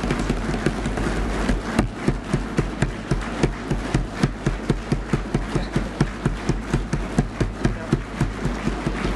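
A chamber full of people applauding. About two seconds in, the scattered clapping falls into unison at roughly three claps a second.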